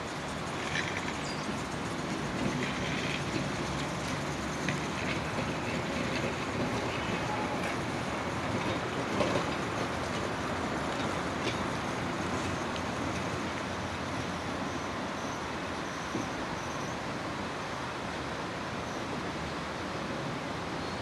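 Electric streetcar rolling along its track, a steady rumble of wheels on rail with scattered clicks, mostly in the first half.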